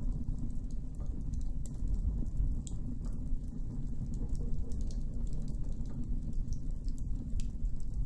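Campfire burning: a steady low rumble with many small, sharp crackles and pops scattered through it.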